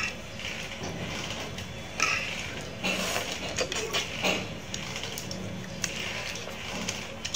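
Eating sounds: cooked shrimp being peeled by hand and eaten, with irregular small crackles and clicks, and a spoon in a soup bowl.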